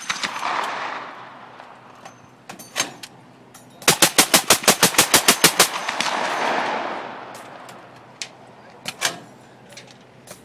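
Suppressed M2 Browning .50 BMG machine gun (OPS Inc. 50-cal can) fires a full-auto burst of about a dozen rounds at roughly seven a second, a few seconds in, with a long rolling echo after it. A single report comes shortly before the burst, and a few isolated sharp reports come later.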